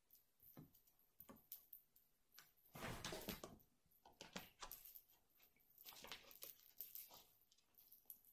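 A cat pouncing and scrambling after a feather wand toy on a wooden floor: soft scuffs, patters and thumps of paws and body, in several short flurries, loudest about three seconds in.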